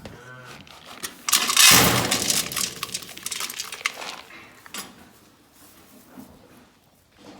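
Clattering of hard objects knocking and rattling together, loudest for about two and a half seconds starting just over a second in, then fading to scattered knocks.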